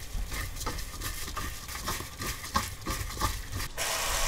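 Hijiki seaweed being scrubbed by a gloved hand with coarse salt in a plastic bowl: a run of irregular wet rubbing and gritty clicking sounds. Near the end, tap water starts running into the bowl with a steady hiss.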